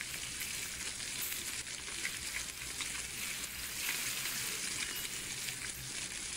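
Very hot sizzler plate sizzling steadily under a serving of tandoori momos and rice laid on a cabbage base: a continuous frying hiss.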